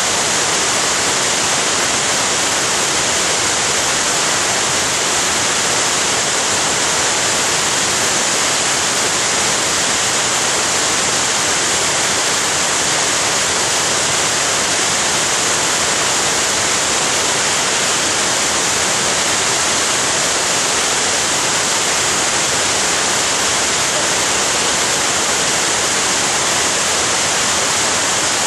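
Florence Falls waterfall: a loud, steady rush of falling water that never lets up.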